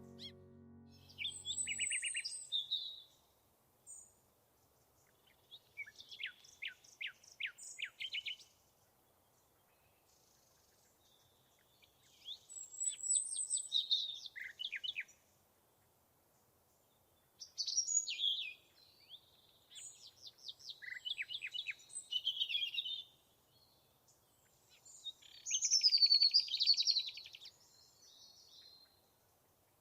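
Songbirds singing: about five short phrases of quick high notes and trills, each a second or three long, with quiet gaps between them.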